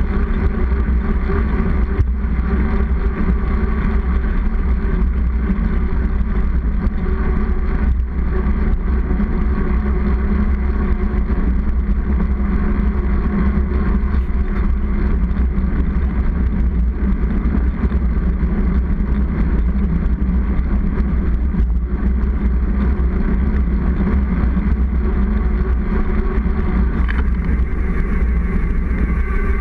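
Steady rush of wind on a bike-mounted action camera's microphone, mixed with the rolling hum of a knobby mountain-bike tyre on asphalt at steady speed.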